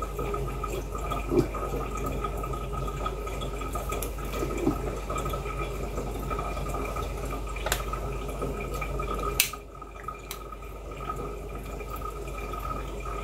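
Home moonshine still's distillate dripping from a hose into a funnel and glass jar, over a steady faint tone. Sharp clicks come twice, a bit past halfway.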